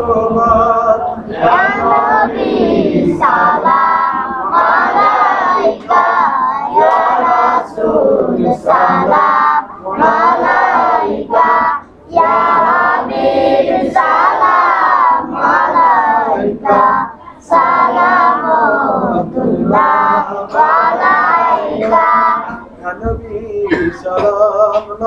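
A man singing a Bengali Islamic devotional song (a naat) without accompaniment, in long wavering phrases with short breaths between.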